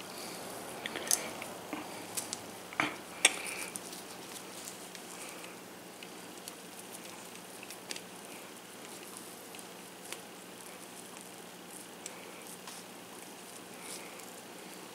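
Soft crackling and clicking of hands working a crumbly bath bomb mixture into small plastic mould halves and scraping it with a plastic stick, with a few sharper clicks in the first few seconds.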